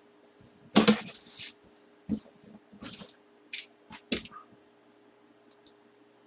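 Handling noises on a desk: a series of short clicks and knocks mixed with brief rustles, loudest about a second in, then growing sparse after about four seconds.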